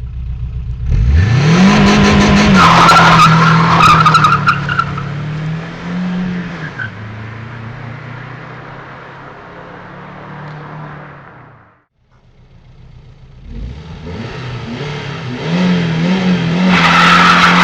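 Lada Kalina's four-cylinder engine revving up hard as the car accelerates, with a high wavering squeal over it, then easing to a steadier note. After a sudden break it builds up hard again near the end.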